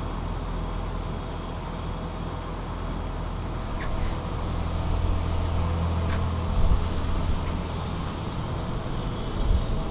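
Stockholm metro train running, heard from inside the carriage: a steady low rumble that grows louder about four seconds in, with a few short clicks.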